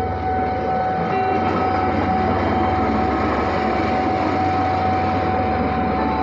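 Railway track-inspection vehicle running along the rails: a steady low engine rumble and rail noise, with a steady whine above it.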